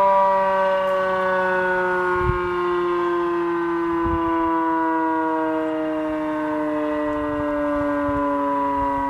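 W.S. Darley Champion fire siren winding down, its cluster of tones sliding slowly and steadily lower in pitch as the rotor coasts toward a stop at the end of a full attack cycle.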